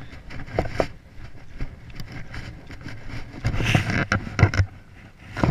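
Handling noise from a body-worn action camera: cloth rubbing over the microphone and irregular knocks and bumps as the wearer moves, loudest a little past the middle.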